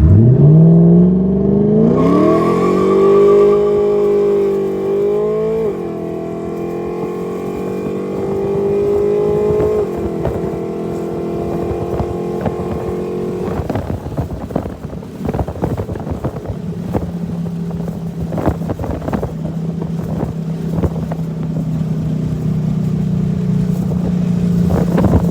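Cammed 2004 Mercury Grand Marquis 4.6-litre V8 through open "boom tube" exhaust pipes, very loud and stock-car-like. It revs up sharply, then holds at high revs with a few step drops in pitch. About 14 seconds in it settles to a lower steady drone with irregular crackles from the exhaust.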